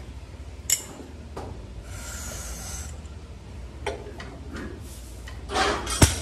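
A lifter sets up over a loaded deadlift barbell: a single sharp click and a brief hiss. Near the end comes a rising noisy rush and one loud, sharp clank of the bar and its iron plates as it is pulled.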